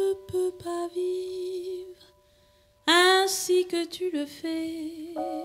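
Female jazz voice singing a held, wordless line over grand piano. The sound drops out for almost a second about two seconds in. The voice comes back strongly with a rising swoop, and piano chords enter near the end.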